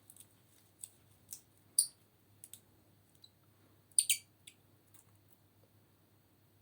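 Slime and makeup being handled at close range: a handful of sharp, crisp clicks and pops at irregular intervals, the loudest pair about four seconds in.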